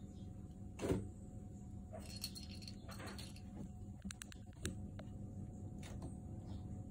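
A small bell inside a plastic cat toy ball jingling in short rattles, with a thump about a second in and a few light clicks and taps.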